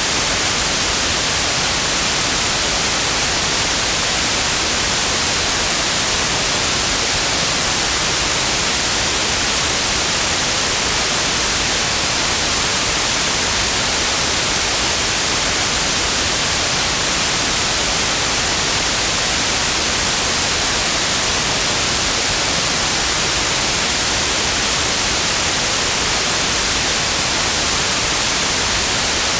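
Pure white noise: a steady, even hiss across the whole range, loudest in the highs, unchanging throughout.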